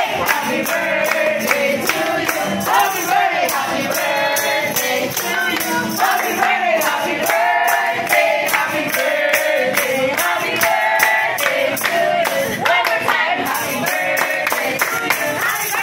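A group of restaurant staff singing a birthday song together in chorus, clapping along in a steady rhythm.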